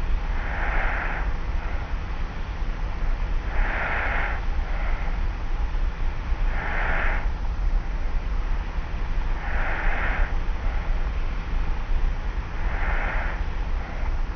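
A person sleeping on their back snores lightly, a soft breath about every three seconds, five in all. Under it runs the steady low hum and hiss of a cassette tape recording.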